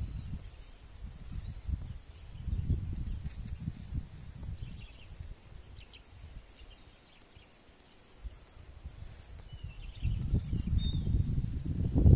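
Wind buffeting the microphone in gusts, easing to a lull midway and picking up strongly again near the end, with a few faint, high bird chirps.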